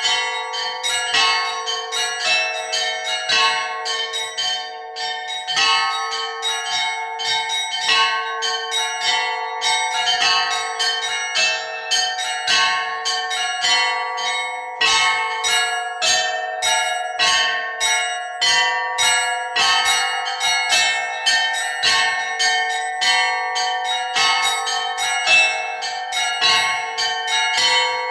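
Russian Orthodox church bells rung by hand in a beginner's peal (zvon): small bells struck rapidly, several strikes a second in a repeating pattern, over a lower bell that keeps ringing underneath.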